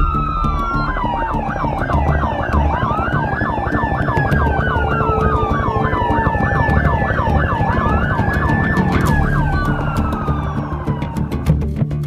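Several police sirens sounding at once, overlapping: slow rising-and-falling wails together with a rapid yelp of about four to five sweeps a second, over background music. The sirens die away near the end, leaving the music.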